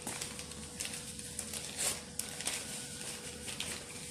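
Paper flan-powder sachets rustling as they are handled, with small ticks and scrapes of a spoon emptying the powder into a metal pot of milk. A faint steady hum runs underneath.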